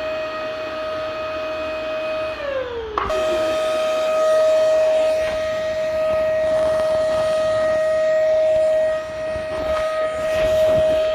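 Vacuum cleaner motor running with a steady high whine. About two seconds in the whine sags down in pitch, then snaps straight back to full speed and runs on steadily.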